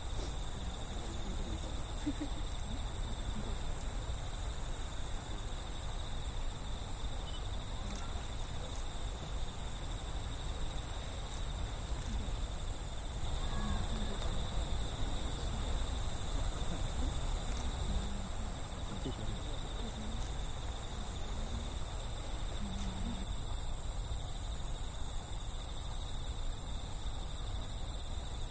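Crickets trilling steadily on an autumn night, a set of high, unbroken tones over a low, steady rumble.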